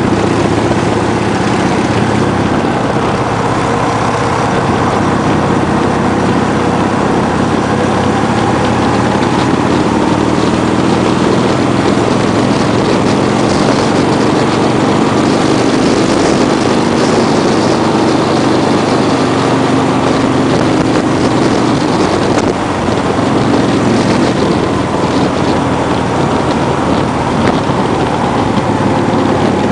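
A vehicle's engine running steadily at road speed, its pitch drifting a little up and down, under a constant rush of wind and road noise.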